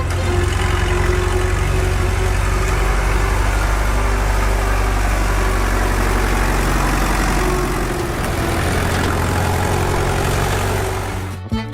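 An engine running steadily with a low rumble, stopping shortly before the end as music comes back.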